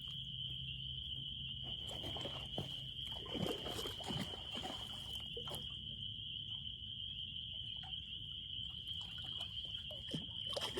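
Steady high-pitched chorus of small calling creatures, unbroken throughout, with a few faint clicks and rustles over it.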